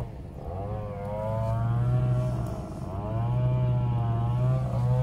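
A small engine running steadily and revving up and down, its pitch rising and falling every second or two over a steady low hum.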